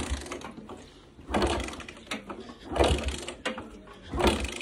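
Motorcycle being kick-started four times, about one kick every second and a half, each kick turning the engine over with a mechanical clatter but not catching. The bike has stood unused for a month through the snowy cold.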